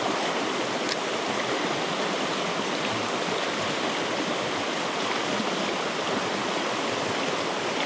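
Shallow mountain river rushing over rocks in white-water rapids, a steady, even rush of water.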